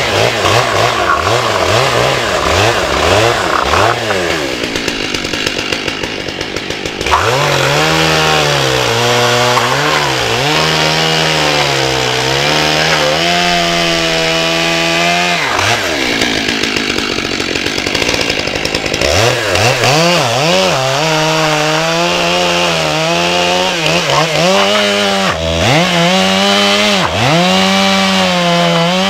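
Stihl MS 661 chainsaw with a 24-inch bar cross-cutting Douglas fir slabs into firewood. The engine revs up and sags in pitch as it bites into each cut, easing off briefly between cuts twice.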